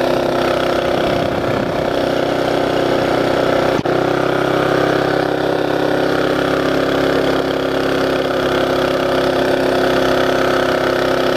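11 hp Tecumseh mini bike engine, driving through a 30 series CVT, running at steady high revs while the bike rides along at speed. A brief click comes about four seconds in.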